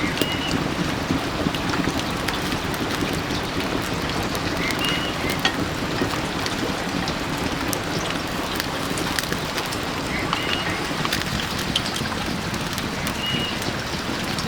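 Steady rush of flowing stream water, with scattered sharp crackles and a few short high chirps.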